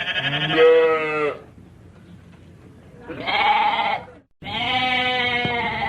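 Goat bleating three times, each bleat a long pitched call of a second or more, the last two close together.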